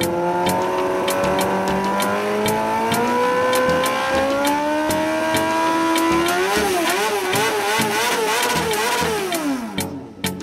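Motorcycle engine of a go-kart revving while stationary. Its pitch climbs slowly for about six seconds, is then blipped up and down several times, and falls away to stop shortly before the end, with sharp clicks ticking evenly throughout.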